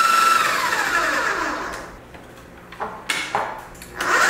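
Food processor grinding spinach with water: the motor whine holds steady, then winds down in pitch over about two seconds. A few knocks follow, and the motor starts up again near the end.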